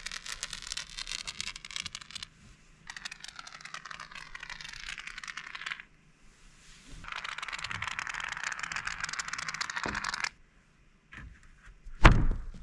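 A large ZIP System subfloor sheet being handled into place: three long stretches of fast, rattling scrapes, then one loud thud near the end as the panel drops down onto the joists.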